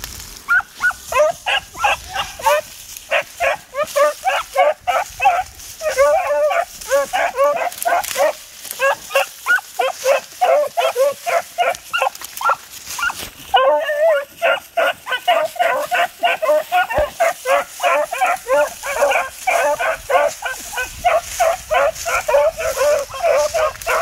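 A small pack of beagles baying on a rabbit's scent trail, giving tongue in rapid, overlapping barks that run almost without a break. There is one brief lull a little past halfway.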